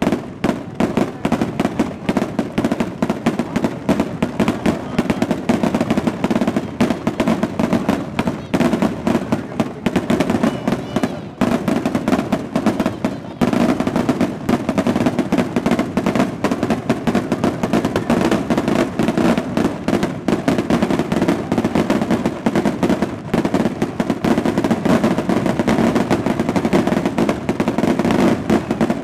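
Fiesta fireworks (rockets and firecrackers) going off in a dense, continuous run of rapid sharp cracks, with only brief lulls, over a lower background din.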